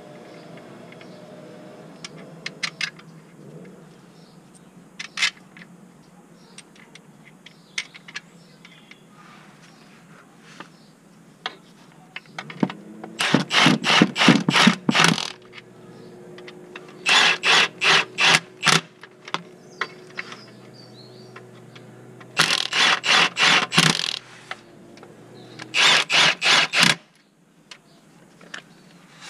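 Cordless impact wrench hammering on the gearbox bolts in four bursts of about two seconds each, rapid even blows. Light metal clicks of tools come before the first burst.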